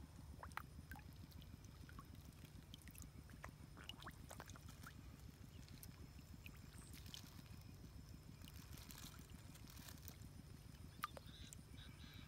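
Near silence: a faint steady low rumble with scattered small splashes and ticks of shallow paddy water, as a catfish stirs the water among the rice stems; one sharper tick comes near the end.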